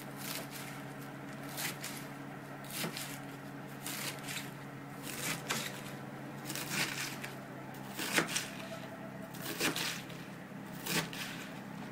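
Kitchen knife chopping Napa cabbage finely on a wooden cutting board: short clusters of crisp cutting strokes about every second or so, over a steady low hum.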